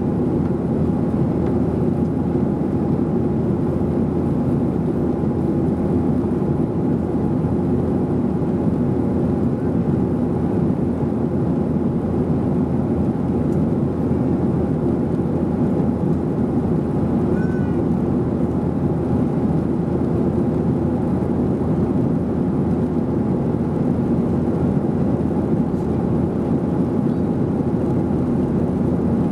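Steady cabin drone of a Boeing 737-800 in flight, heard from a window seat behind the wing: its CFM56-7B engines and the airflow over the fuselage make an even, unchanging noise.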